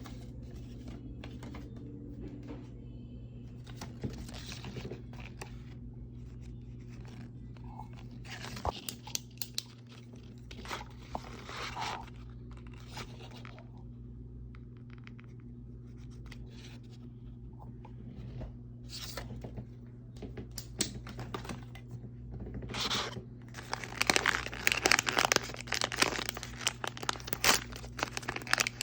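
Plastic wrapping on Mini Brands toy capsules being peeled and torn open, crinkling in short scattered bursts. The crinkling becomes dense and loudest over the last few seconds. A steady low hum runs underneath.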